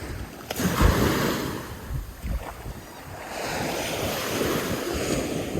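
Surf washing in on a beach in two long swells, with wind buffeting the microphone.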